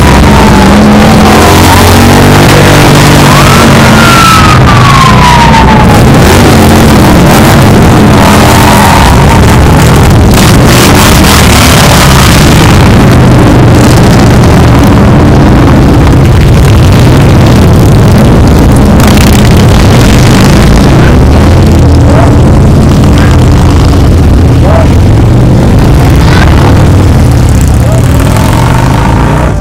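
A procession of big cruiser and touring motorcycles riding past one after another, their engines loud and continuous. A rising and falling wail sounds over them in the first several seconds.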